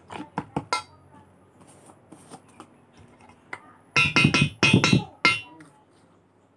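A few sharp clicks of hand and metal against a steel mixing bowl, then about four seconds in a quick run of five or so short, squeaky creaks as a red plastic screw-cap jar is twisted open.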